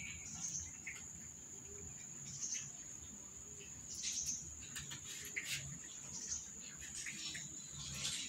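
Cats crunching dry kibble: short, irregular crunches over a steady high-pitched whine.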